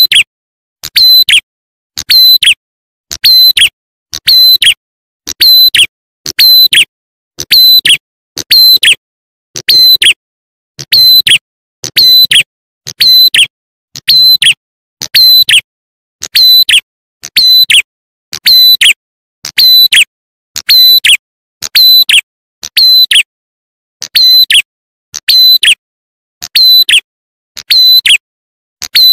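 Tailorbird lure call ('prenjak atas' / 'ciblek klawu'): a sharp, high double chirp with a falling tail. It repeats evenly about once a second, like a looped recording played loud to attract wild birds.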